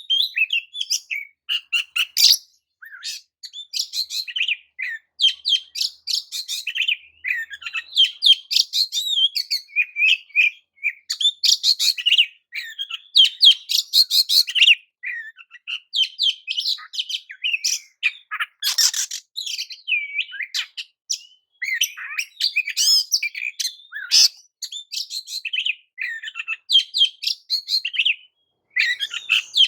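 Oriental magpie-robin (kacer) singing a fast, varied stream of chirps, whistles and trills, almost without a break.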